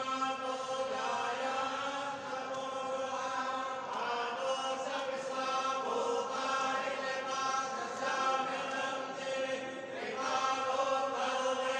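Hindu mantras chanted as part of a puja, on a steady held pitch with short breaks every few seconds.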